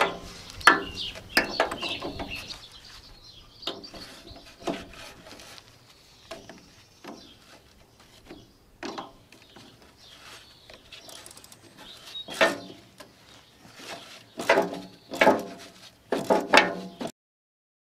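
A spanner clinking and scraping on the rusted nut and bolt of a grass collector's brush-driveshaft clamp as it is worked loose, with a run of short squeaks in the last few seconds.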